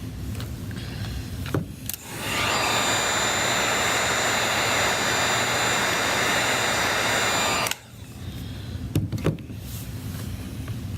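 A small electric blower motor running with a steady rush of air for about six seconds, switched on about two seconds in and shut off abruptly. A few light clicks come just before it starts and again after it stops.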